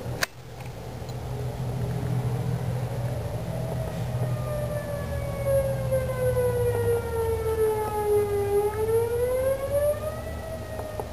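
A siren wailing, its pitch sliding slowly down and back up over several seconds without a break. A sharp click sounds about a quarter second in.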